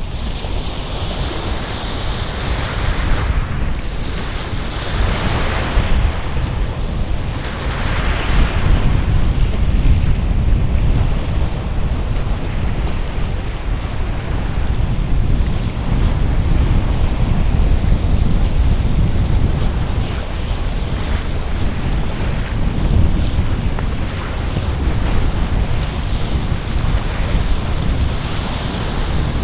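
Waves on Lake Garda washing in, in rising and falling swells, with wind buffeting the microphone in a steady low rumble.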